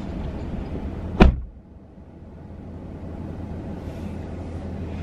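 A car door slammed shut once, about a second in, over the low hum of the running car; once it is shut the cabin is quieter.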